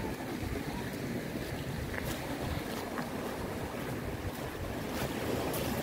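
Steady rush of sea surf and wind, with wind buffeting the microphone and a few faint ticks.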